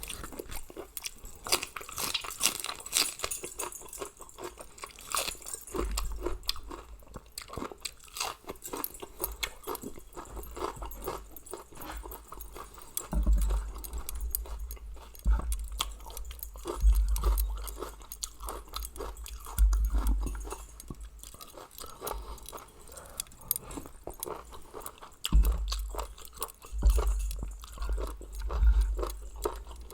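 Close-up chewing and crunching of a person eating seafood papaya salad, with many small mouth clicks and occasional low bumps.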